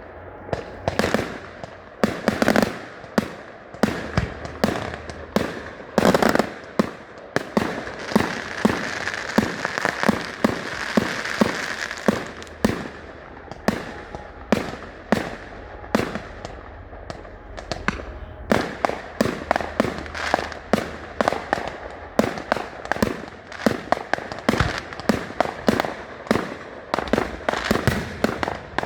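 Fireworks display: a steady barrage of aerial shells going off, several sharp bangs and cracks a second, with a stretch of dense crackle and hiss about a third of the way in.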